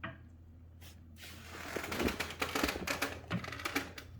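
An exercise bike pedal being screwed onto its crank arm: a quick run of clicking and scraping that starts about a second in and dies away near the end.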